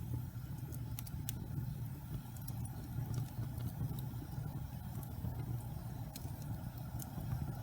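Wood logs burning in a fireplace: a steady low rumble of the fire with scattered sharp crackles and pops, two of them close together about a second in.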